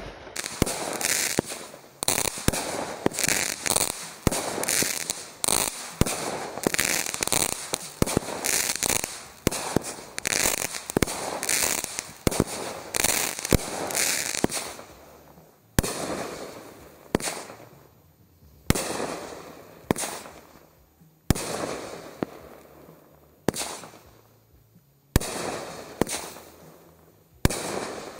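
Consumer aerial fireworks bursting. For about the first half there is a dense run of rapid bangs and crackling, then single bursts about one every second and a half, each with a fading tail.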